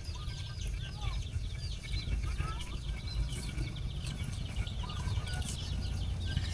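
Birds chirping and calling in a dense, continuous chorus of short high chirps, with a few lower curved calls among them, over a steady low rumble.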